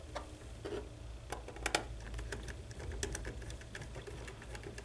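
Small screwdriver clicking and scraping in a screw terminal as a wire is fastened into the communicator board's terminal strip: a few faint, irregular clicks, the sharpest about one and a half seconds in.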